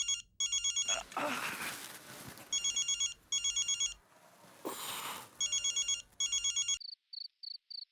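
A telephone ringing in a pulsing double-ring pattern, three pairs of rings, with two brief swells of rustling noise between them. The ringing stops near the end and crickets chirp steadily.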